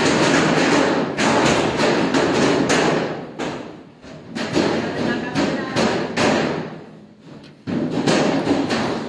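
Hand-pulled noodle dough being slapped and thrown against a stainless-steel worktable while it is stretched: a run of irregular thuds.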